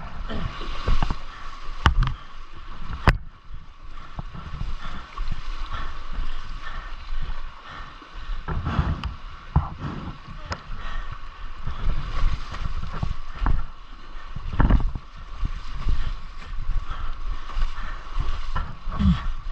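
Rushing river water, with irregular thumps and knocks throughout.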